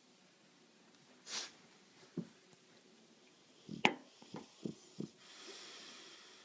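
English bulldog stirring awake in a wire crate. A short breathy snort comes first, then a handful of light clicks and knocks a few seconds in, then a long noisy breath out near the end.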